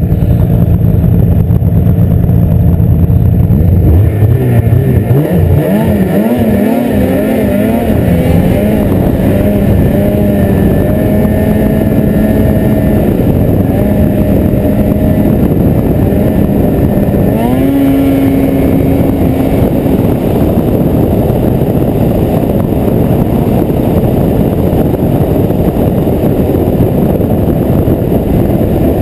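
Ski-Doo snowmobile engine under the rider, idling at first, then revving about four seconds in with a wavering, climbing pitch as the sled pulls away, and settling into a steady run. From about twenty seconds in, a steady rushing noise of riding at speed mostly covers the engine tone.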